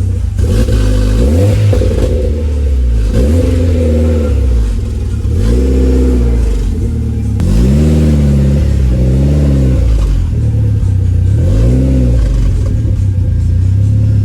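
Car engine running and blipped on the throttle again and again, each rev rising and falling in pitch every second or two over a steady low idle.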